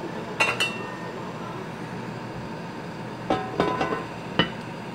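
Kitchenware clinking: two ringing clinks near the start, a quick cluster of clinks past the middle and one last sharp clink near the end, over a steady background rumble.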